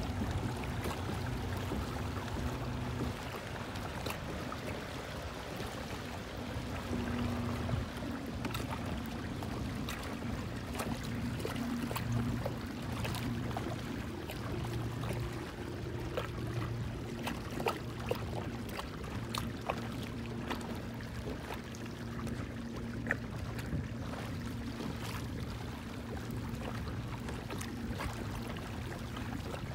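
Water lapping and trickling against the hull of a Malibu PDL pedal kayak as it glides along. A low hum that comes and goes runs underneath, with scattered small clicks.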